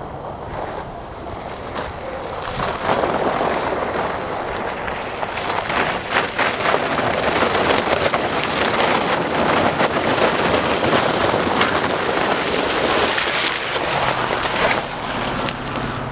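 Off-road vehicle driving through muddy, icy puddles: a rushing, crackling noise of tyres and splashing water, with wind on the microphone. The noise grows louder about two and a half seconds in.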